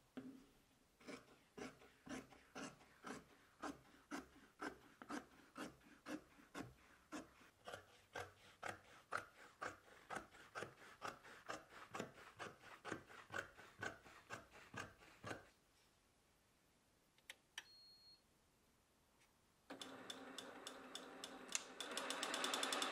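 Large tailor's shears cutting synthetic leather, a crisp crunching snip about two to three times a second for some fifteen seconds. After a short pause and a single electronic beep, an industrial sewing machine starts running near the end.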